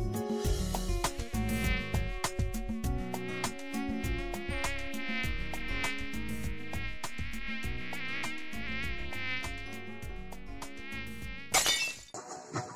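High mosquito whine that wavers and wobbles in pitch, laid over a steady clicking beat. A short, sharp noise comes near the end.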